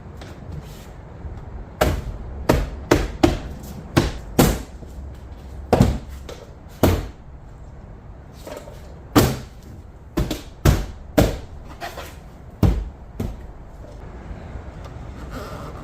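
A dozen or more sharp knocks on the pickup's rear door, in uneven runs with a short pause partway through.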